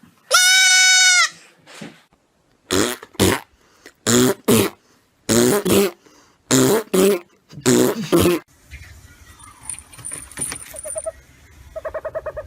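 Animal calls: one long, clear, high-pitched call near the start, then about ten short, harsh cries in quick pairs.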